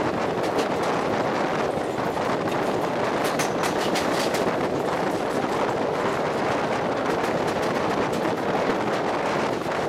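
Express passenger train running at speed, heard from a coach: a steady rumble of wheels on the rails with many light clicks and rattles scattered through it, busiest around the middle.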